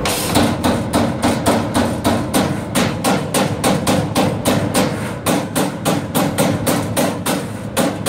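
CNC turret punch press punching holes in sheet metal: a fast, even run of sharp punch strikes, about four to five a second.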